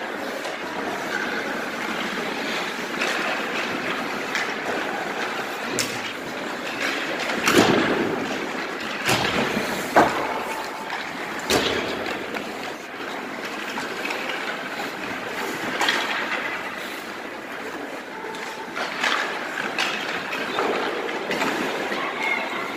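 Ice-rink play: skate blades scraping and hissing on the ice, with sharp knocks of sticks and pucks striking every few seconds, the loudest about ten seconds in.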